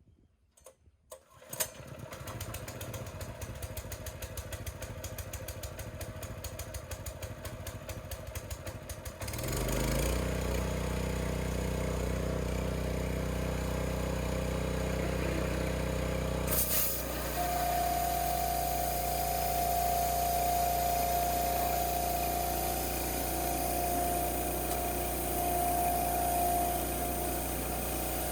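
Power Horse 3200 psi gas pressure washer starting up: its engine catches within the first two seconds and runs with a fast ticking, then at about nine seconds comes up to a louder, steady run. From about seventeen seconds a steady whine rides on top of the engine.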